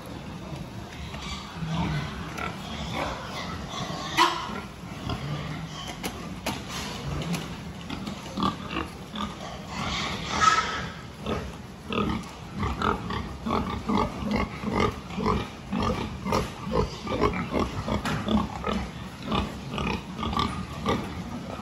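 A group of young pigs grunting in a pen, the grunts coming more often and steadily in the second half, with a couple of louder, sharper sounds about four and ten seconds in.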